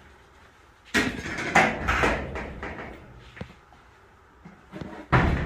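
Rummaging through a pile of stored belongings: cardboard boxes and clutter are shoved and shifted. A loud scraping clatter comes about a second in and lasts a second or so, and a second knock comes near the end.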